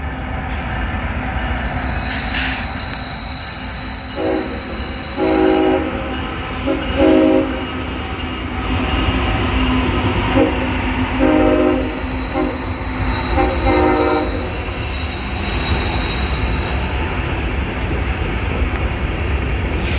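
Freight train rolling past with a steady rumble while its diesel locomotive's air horn sounds a broken string of short and longer blasts, a playful horn pattern, loudest about seven seconds in. A thin, high, steady wheel squeal comes and goes over it.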